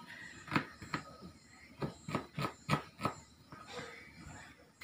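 Kitchen knife chopping shallots and garlic on a plastic cutting board: a string of short sharp knocks, irregular, roughly two a second.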